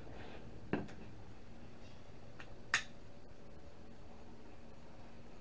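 Hand wire cutters snipping at a small cooling fan: two sharp snaps about two seconds apart, the second louder, with a couple of fainter clicks.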